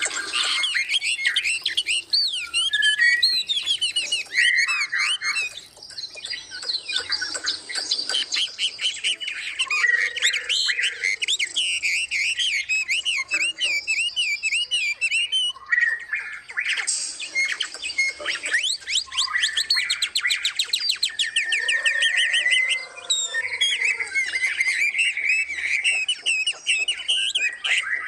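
Many songbirds in an aviary singing and calling at once: overlapping chirps, rapid trills and warbled phrases, with a few harsh squawks and an occasional lower, gliding call.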